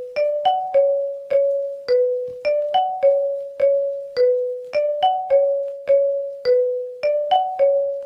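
Ringtone melody of bell-like keyboard notes, each struck and fading. A short five-note phrase, three quick notes then two slower ones, loops a little over every two seconds.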